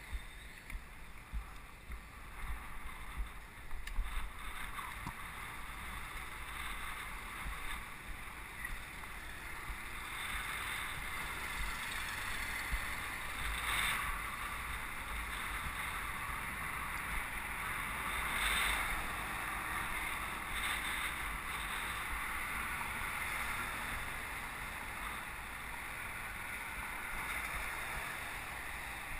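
Steady rush of wind and road noise on a bicycle-mounted camera's microphone while riding in city traffic. There are a few low bumps in the first few seconds, and the noise swells now and then as cars pass close alongside.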